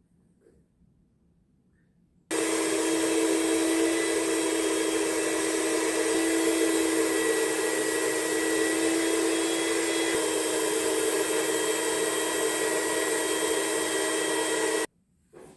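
Steady whirring of an electric motor with rushing air and a constant hum, switching on abruptly a couple of seconds in and cutting off just before the end.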